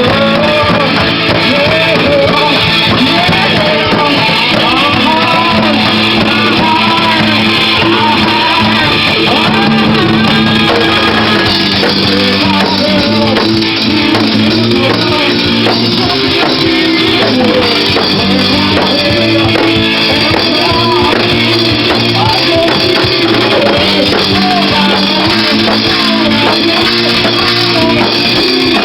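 A live rock band playing at a steady, loud level, with a voice singing over electric guitar and a drum kit.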